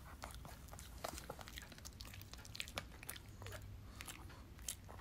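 A Shih Tzu chewing a small hard dog treat: a faint, irregular run of quick crunching clicks.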